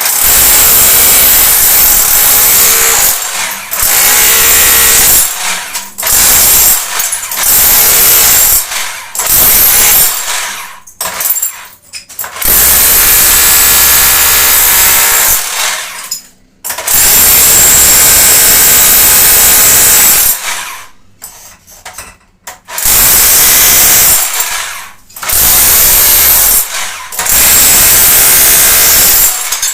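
Handheld power tool running in repeated bursts of one to five seconds, stopping and starting about nine times, as it chips out tile and concrete for a plumbing repair.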